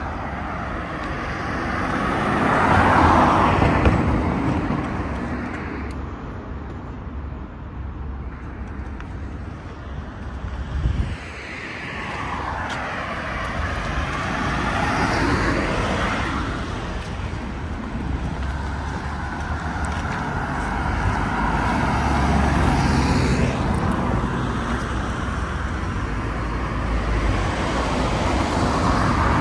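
Street traffic: cars passing on a road, each passing swelling and fading, over a steady low rumble, with a short bump about eleven seconds in.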